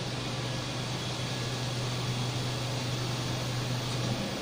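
Steady low machine hum with an even hiss of factory-hall background noise; the hum cuts off about four seconds in.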